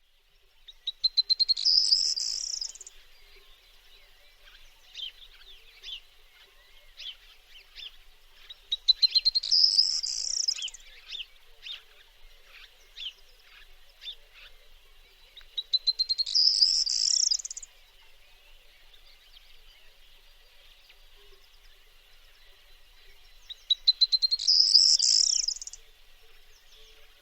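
Corn bunting singing four times, about every seven to eight seconds. Each song is a run of quickening ticks that runs into a dry, jangling trill. Fainter chirps from other birds come between the songs.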